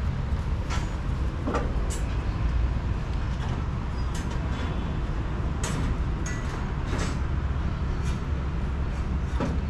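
Steady low street rumble, with scattered sharp crunches as a cat chews dry cat food kibble.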